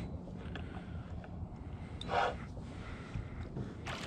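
Spinning reel being cranked against a hooked catfish, its gears and drag giving small scattered clicks and creaks, with a short rushing burst about two seconds in.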